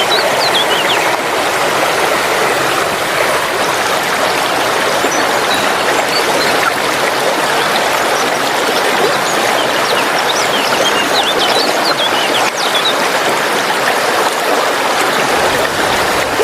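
Waterfall rushing, a loud, steady, even wash of falling water, with a few short high chirps near the start and again about ten seconds in.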